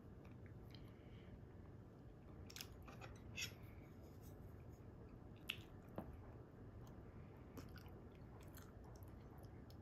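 Faint chewing of soft food, with a few small clicks scattered through it, the sharpest two coming a little past halfway.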